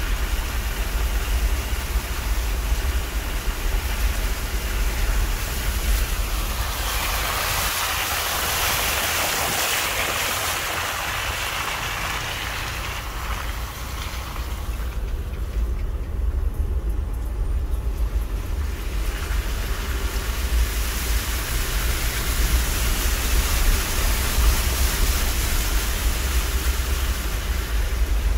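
Vehicle driving slowly through standing floodwater on a dirt track: a steady low rumble with water swishing and hissing around the tyres, louder and brighter for a few seconds about a third of the way in.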